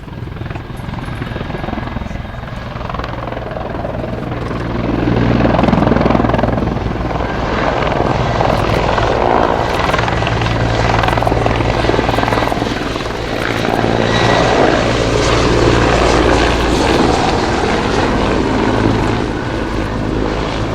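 Mil Mi-24V Hind helicopter with twin turboshaft engines flying a display, its engine and rotor roar growing louder about five seconds in, then rising and falling as it manoeuvres.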